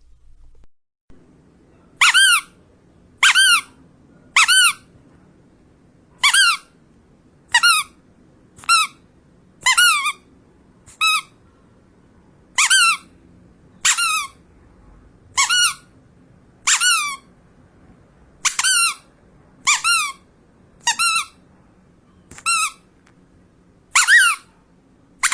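Rubber duck squeezed again and again, giving about seventeen short, separate squeaks, each with a quick bend in pitch, roughly one a second. They start about two seconds in.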